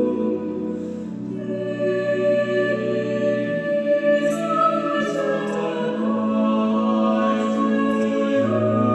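Slow, reflective choral music: voices singing long held chords, the bass note shifting every two or three seconds.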